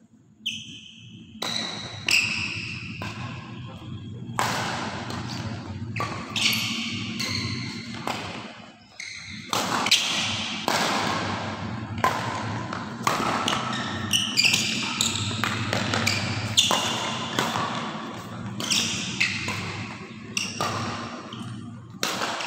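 Badminton rally in a large echoing hall: repeated sharp hits of racket strings on the shuttlecock, with short high squeaks of shoes on the court floor between them.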